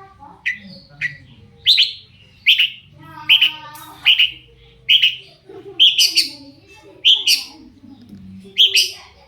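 Long-tailed shrike (cendet) calling: a string of short, harsh notes at a bit more than one a second, with one longer, more drawn-out note about three seconds in.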